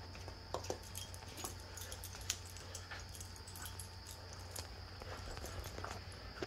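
Faint scattered clicks and small knocks with rustling as pieces of Southern Straight dance regalia are tied and adjusted at the waist.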